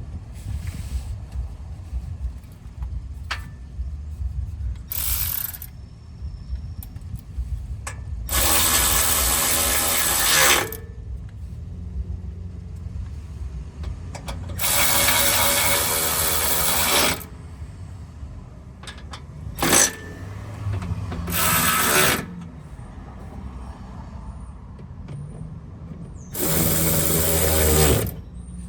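Cordless ratchet driving 10mm fasteners on a car's lower undercover, its motor whining in about six bursts, most of them one to two and a half seconds long.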